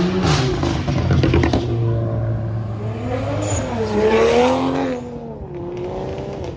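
A car's engine revving up and down as it accelerates away, with a rapid crackle about a second in and the hardest rev about four seconds in before it eases off.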